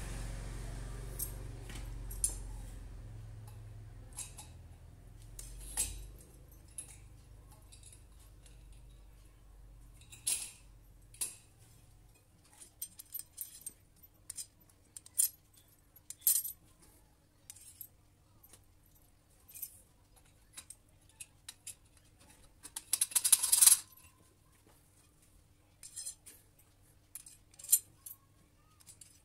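Steel S-hooks and metal rods clinking and tapping together while they are handled and slotted into a tool hanger, with one longer metallic rattle a little past two-thirds of the way in. A low rumble fades out over the first several seconds.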